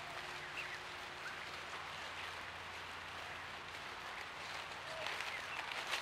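Steady hiss of a leafy woodland with a few faint, short rising bird chirps, more of them near the end.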